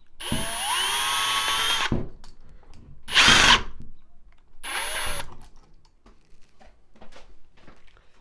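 Power drill running three times, most likely driving a screw tight. First comes a spin-up of almost two seconds that rises in pitch, then a short, louder burst about three seconds in, then a brief run about five seconds in.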